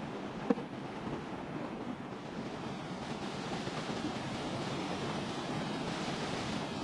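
Steady rushing of a waterfall. A single sharp knock comes about half a second in.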